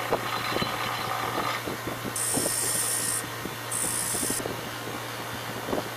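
Bench grinder running with a steady hum while a small piece of metal held in pliers is ground against the wheel, with two grinding contacts of about a second each near the middle and small scraping ticks between them.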